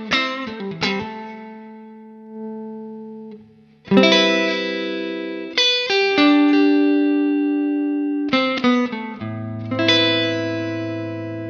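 Electric guitar played through an optical compressor pedal: a few quick picked notes, then chords struck and left to ring with long sustain.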